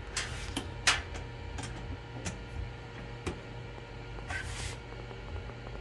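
Scattered small clicks and taps of tools and parts being handled while a diesel injector is reassembled and tightened, with two short hissing noises near the start and about four seconds in, over a steady low hum.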